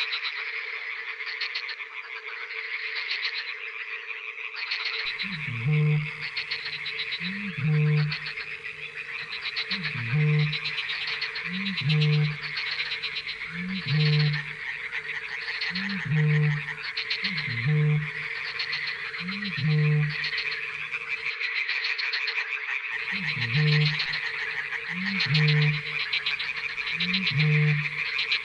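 Night chorus of pond frogs croaking continuously, with a steady low tone running under it. From about five seconds in, a deep booming call repeats roughly every two seconds, each opening with a short rising note, with a brief pause about two-thirds of the way through.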